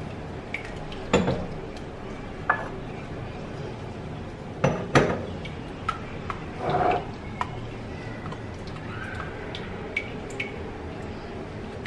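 Silicone spatula stirring and scraping a thick creamy mixture in a glass mixing bowl, with a few sharp knocks of the spatula against the glass; the loudest come about five seconds in.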